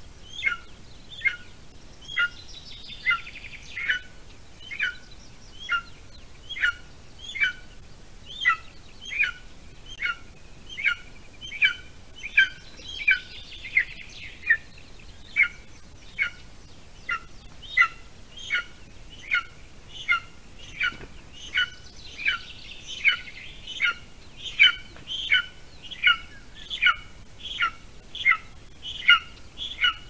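Golden eagle eaglet giving a steady, insistent series of sharp, downward-slurred food-begging calls, about one and a half a second, while the adult holds prey at the nest. Faint high twittering sounds behind it a few times.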